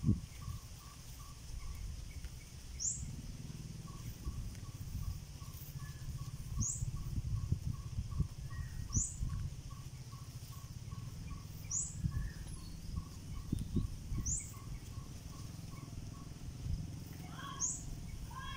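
Birds calling outdoors: a short, high upward whistle repeated every two to three seconds, with a quicker run of lower repeated notes through the middle and a few lower sweeping calls near the end, over a steady low rumble.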